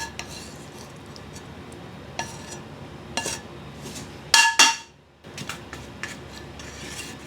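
A metal kitchen utensil clinking against a pan several times, each strike ringing briefly. The loudest pair of strikes comes about four and a half seconds in.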